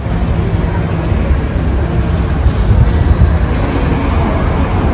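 Loud, steady low rumble of outdoor street noise, with no distinct events.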